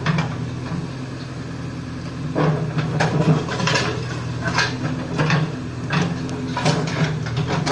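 JCB backhoe loader's diesel engine running steadily while its small bucket fills a pit with soil, with a string of knocks and clatters from the bucket and falling earth starting a little over two seconds in.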